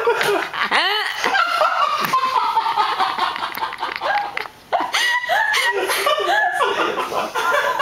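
Two people laughing hard and helplessly, high-pitched laughter rising and falling in pitch, breaking off briefly about halfway through.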